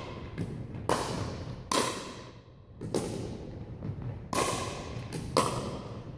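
Pickleball rally: paddles striking the plastic ball in a series of sharp pocks about one a second, echoing in a large gymnasium.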